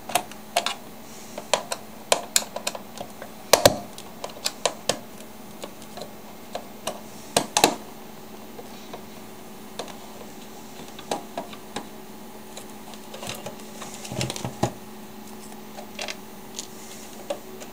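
Irregular clicks and taps of a screwdriver on screws and of hard plastic casing being handled and pried while a Panasonic KX-TC1001 cordless phone base station is taken apart; the sharpest clicks come about three and a half and seven and a half seconds in.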